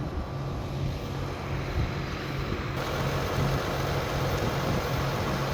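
John Deere 7290R tractor's engine running steadily under heavy load, pulling a chisel plow through hard, compacted ground; the sound grows a little fuller about three seconds in.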